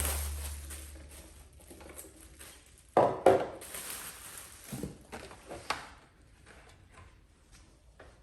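Drink cans and plastic storage bins knocked and set down while stocking a refrigerator: a fading rustle, then a few sharp clatters, loudest a double knock about three seconds in.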